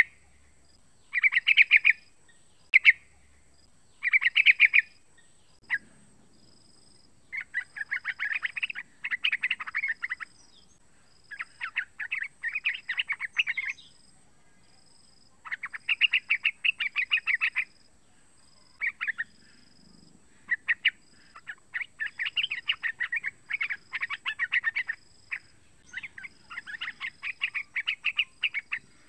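Young yellow-vented bulbul calling: repeated bursts of rapid, bubbling notes, each burst a second or two long, with short pauses between them.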